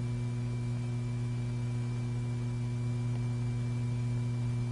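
Steady low electrical hum with a faint hiss, unchanging throughout: the background noise of an old film soundtrack.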